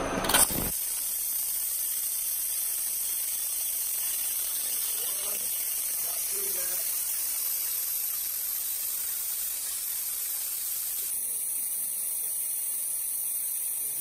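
Waterjet cutting head spraying a high-pressure water stream, turned down to its lowest pressure, into a coffee pod: a steady hiss that starts about half a second in and holds even, its tone shifting slightly about eleven seconds in. At this pressure the jet does not break through the pod's bottom.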